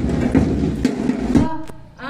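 Marching drum beat, strokes about twice a second, fading out about one and a half seconds in.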